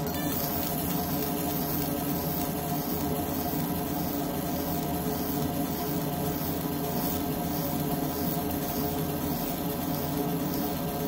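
Fiber laser engraver marking a steel handcuff, the beam making repeated fast passes over one shape: a high hiss that pulses about twice a second with each pass, over a steady machine hum.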